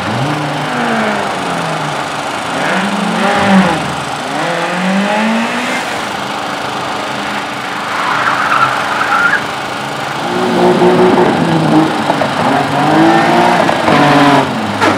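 Amateur slalom race car driven hard, its engine revving up and falling off again and again as the driver works the throttle through the turns. Tyres squeal briefly about halfway through.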